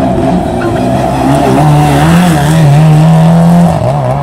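Race car engine at high revs. Its note climbs about a second and a half in, holds steady at its loudest, then drops suddenly near the end.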